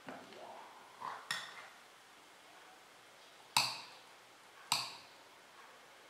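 Stainless-steel French press being handled and taken apart, its metal parts clinking. There is a soft knock about a second in and a ringing clink just after it, then two sharper ringing clinks about a second apart past the middle.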